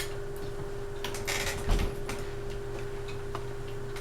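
Westinghouse Apollo Elite ceiling fan running on medium speed with a steady motor hum. A brief clatter of clicks comes about a second in, then faint scattered ticks.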